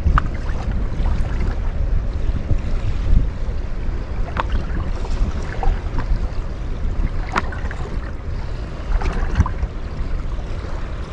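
Wind buffeting the microphone over choppy lake water, a steady low rumble with small waves lapping at a drifting boat, and a few brief sharp ticks.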